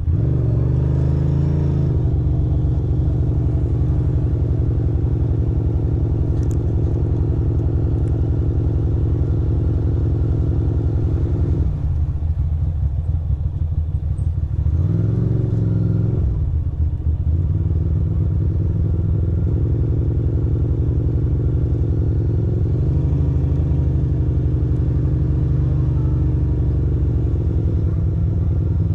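A 2006 Ducati Monster 620's air-cooled V-twin runs at low revs under the rider with a steady, even throb. About halfway through, the engine note eases off twice for a second or two, then picks up again.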